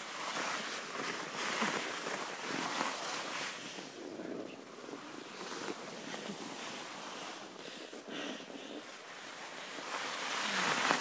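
Skis sliding and scraping over packed snow on a downhill run, with wind rushing over the microphone. The noise swells and fades in surges, quieter in the middle and loudest near the end.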